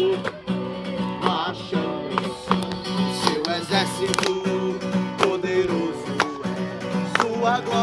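Acoustic guitar strumming chords in a slow praise song, without singing.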